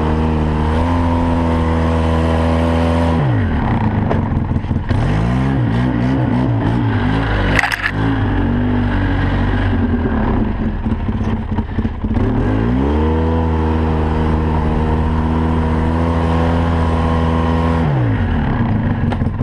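Four-wheeler (ATV) engine running while riding a snow trail: it holds steady revs for a few seconds, eases off and wavers for several seconds, then climbs back to steady revs and eases off again near the end. A brief sharp knock about eight seconds in.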